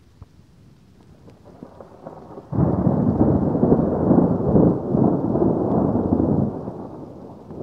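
Thunder: a sudden loud peal about two and a half seconds in that rolls on for about four seconds, then dies away.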